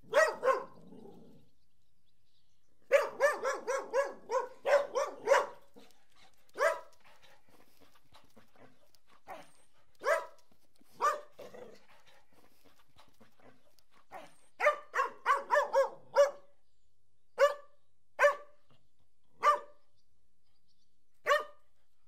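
Collies barking in short, sharp barks: two quick runs of several barks in a row, one about three seconds in and one about fourteen seconds in, with single barks spaced a second or more apart between and after them.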